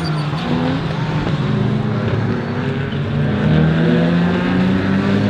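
A pack of GT race cars driving past, several engine notes overlapping and rising and falling together.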